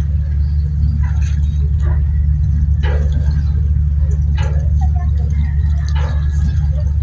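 Steady low rumble of a motor vehicle, with a few faint short knocks or rustles.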